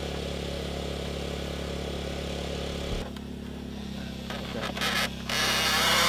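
A steady, even motor hum at an unchanging pitch. About three seconds in it drops, and bursts of rough rustling noise come and go, loudest near the end.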